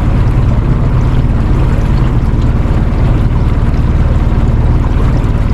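A small boat's motor running steadily as the boat moves along under way.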